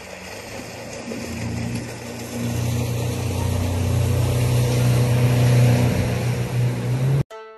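Small sightseeing pontoon boat's motor running hard with the rush of water, a steady low hum growing louder as the boat approaches and passes close by, then cutting off suddenly near the end.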